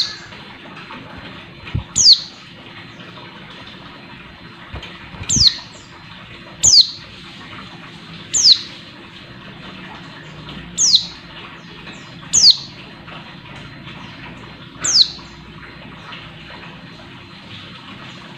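Female white-eye giving short, high calls that slide down in pitch, about eight at uneven intervals of one and a half to two and a half seconds, some with a soft low thump. This is the female call that keepers play to stir male white-eyes into song.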